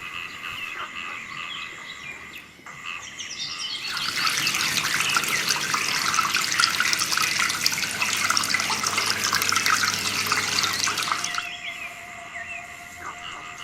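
Water running and splashing for about seven seconds, starting about four seconds in and stopping suddenly, over birds chirping.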